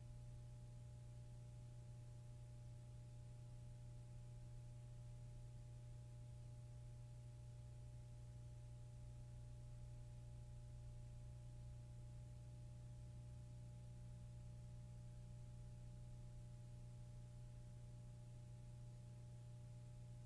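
Near silence: a steady low hum with two faint higher steady tones, and no other sound.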